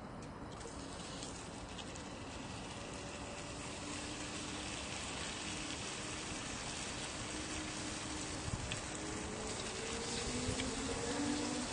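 Raw pork belly slices sizzling on a hot griddle pan, the sizzle growing louder as the meat is laid down and spread.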